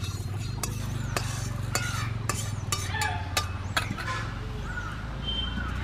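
Metal spatula scraping and clicking against an aluminium kadai and a steel bowl as dry-roasted urad dal is tipped out, with many irregular sharp clicks and the rattle of the lentils. A low steady hum runs underneath, and birds chirp now and then.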